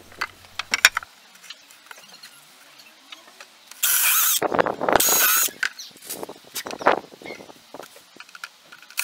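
Cordless drill with a countersink drill bit boring countersunk pilot holes into softwood decking, in two short bursts a few seconds in, its motor whine wavering with the trigger. Light clicks and knocks of the wood and screws being handled come before and after.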